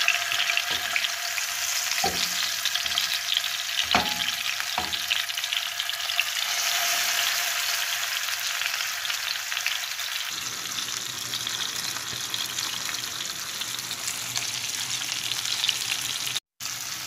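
Masala-marinated pomfret shallow-frying in hot coconut oil in a nonstick pan, with a steady sizzle. A few sharp clicks come in the first five seconds, and a brief dropout falls near the end.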